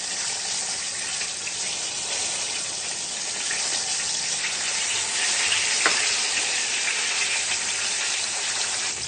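Chicken pieces deep-frying in hot oil, a steady sizzle, with one short knock about six seconds in.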